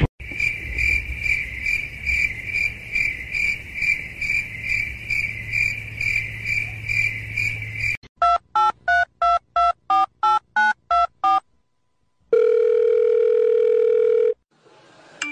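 A high electronic tone pulsing about two and a half times a second for several seconds, then a quick run of about ten telephone keypad touch-tone beeps, as if a number is being dialed, and after a short pause a steady telephone tone lasting about two seconds.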